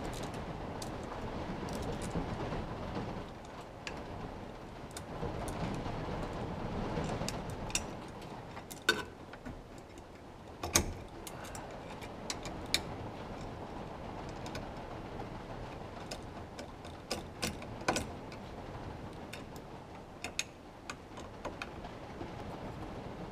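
Scattered light clicks and knocks, a few sharper ones about nine, eleven and eighteen seconds in, over a steady low rushing background.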